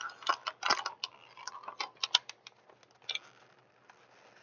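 Irregular light clicks and taps of small plastic items being handled, several in the first two seconds and fainter ones later.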